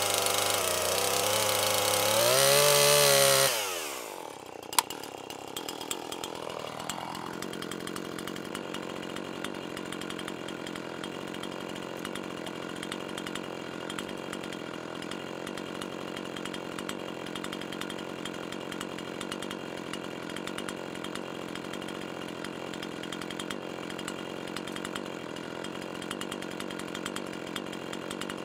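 Chainsaw cutting through a log at full throttle; about four seconds in the revs fall away and it settles to a steady, quieter idle for the rest, with one sharp click shortly after the revs drop.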